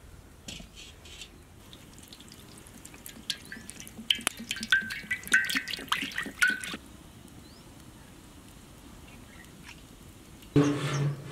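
Cooking oil poured in a stream into a large black iron kadai, splashing and gurgling for a few seconds in the middle. A short louder burst comes near the end.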